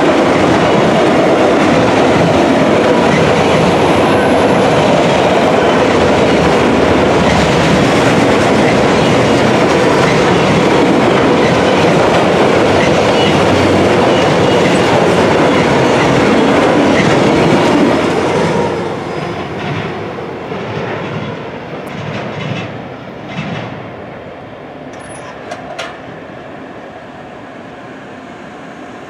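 Autorack freight cars rolling past at speed, their wheels running steadily on the rails; about eighteen seconds in the last car passes and the sound falls away to fainter rattles and clicks.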